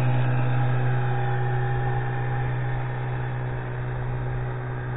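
Veterok-8 two-stroke outboard motor, freshly rebuilt after a major overhaul, running at a steady drone as it pushes an inflatable boat away, slowly fading as the boat draws off.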